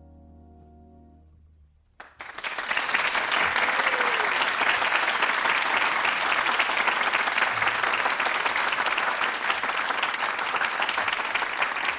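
The band's last sustained note of a jazz ballad dies away, then a studio audience applauds steadily for about ten seconds, from a cassette recording.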